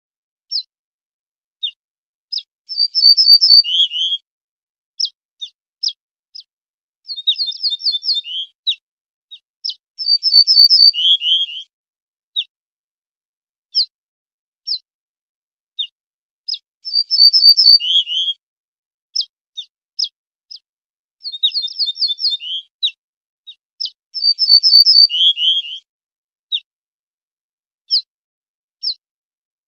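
Ortolan bunting singing: about six phrases, each a quick run of repeated high notes ending in lower, falling notes, with single short call notes between the phrases.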